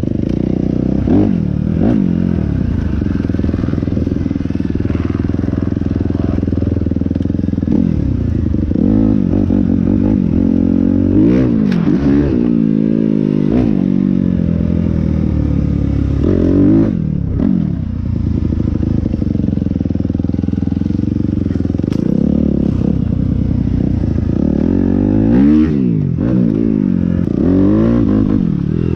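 Motorcycle engine running hard, its pitch climbing and dropping again and again as the rider accelerates and shifts, with a brief let-off of the throttle a little past halfway.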